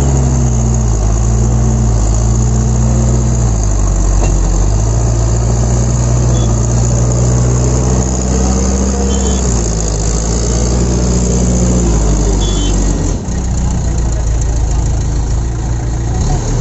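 Diesel engine of a Case backhoe loader working under load close by as it pushes earth with its front bucket. Its revs rise and fall several times, then drop back about thirteen seconds in.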